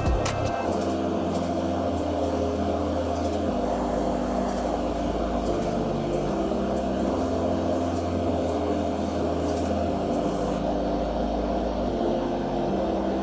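Background music in a slow passage of long held chords, the bass note changing every few seconds.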